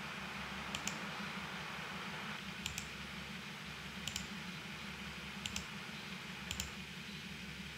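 Computer mouse button clicked five times at uneven intervals, each click a quick double tick of press and release, over a steady low hum.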